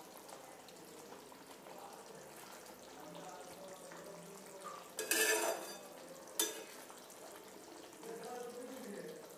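Fish curry simmering in a metal pan while a spatula stirs it. About five seconds in comes a brief loud rasp of the spatula against the pan, then a single sharp knock a second later.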